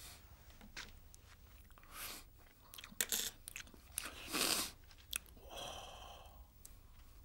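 A man eating noisily with his hands: wet chewing and lip-smacking in irregular bursts, with a few sharp clicks, loudest about three and four and a half seconds in.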